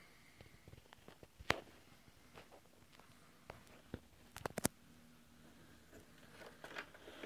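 Handling noise: a few sharp clicks and taps over quiet room tone. The loudest click comes about a second and a half in, and a quick run of three or four clicks follows around four and a half seconds.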